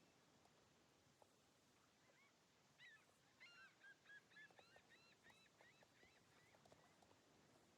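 Near silence, with a faint run of quick, high chirps from about three to six and a half seconds in.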